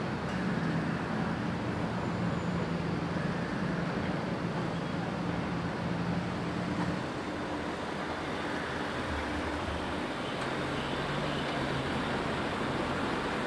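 City street traffic: car engines running as a car drives along the street, a steady hum whose pitch shifts a few times.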